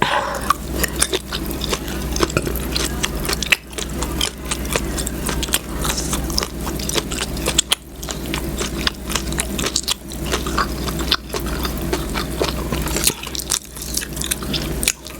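Close-miked chewing and biting of food: a dense, irregular run of small wet clicks and smacks, with a few short pauses between mouthfuls.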